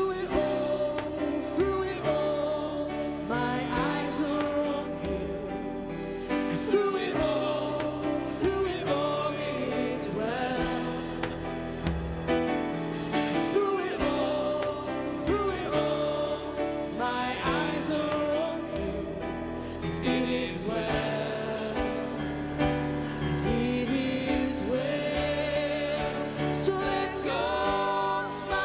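Live worship band playing a contemporary Christian worship song, with women singing lead into microphones over keyboard, electric bass and drums.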